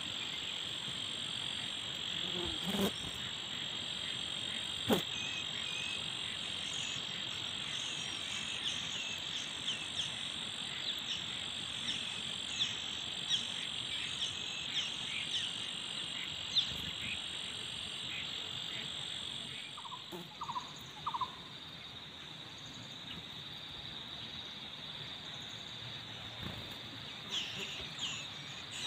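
Outdoor insect chorus: a steady high-pitched drone with many short chirps over it, which thins out about twenty seconds in. Two sharp clicks, about three and five seconds in, and a few short mid-pitched calls around twenty seconds in.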